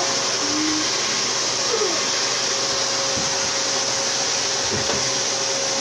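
Vacuum cleaner running steadily: a constant, even rushing whir with a faint steady hum.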